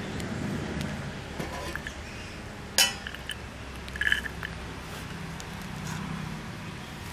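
Small green chillies dropped from a hand into a stainless steel bowl, the bowl clinking: a sharp clink just under three seconds in and a short ringing clink about four seconds in.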